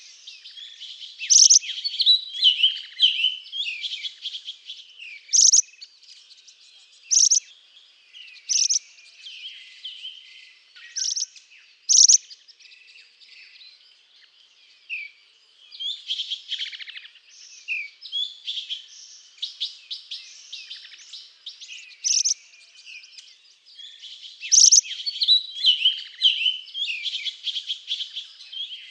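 A group of small songbirds twittering and chirping without pause, high-pitched, with louder sharp chirps standing out every few seconds.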